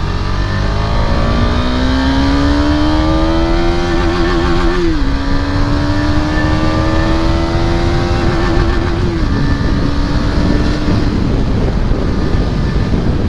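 KTM Duke 250 single-cylinder engine with an Akrapovic exhaust, pulling under acceleration while riding. Its pitch climbs slowly, drops at a gear change about five seconds in, climbs again and drops at a second shift about nine seconds in, over steady road and wind noise.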